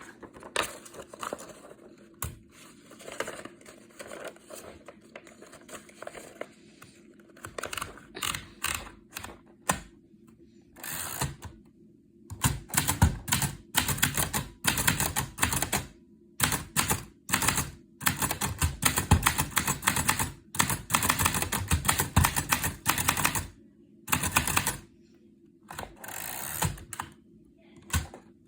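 1940 Underwood Universal manual typewriter being typed on: quick runs of key strikes broken by short pauses, softer at first and louder from about twelve seconds in.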